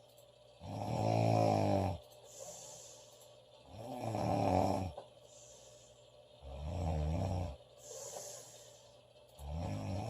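A woman snoring loudly: four rasping snores about three seconds apart, each lasting about a second, with a softer airy breath between them.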